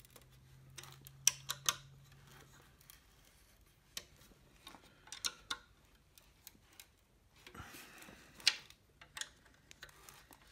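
Scattered clicks, taps and short scrapes of a hand tool and metal screws against a small painted wooden rocking chair frame as the screws are worked in by hand, at irregular intervals.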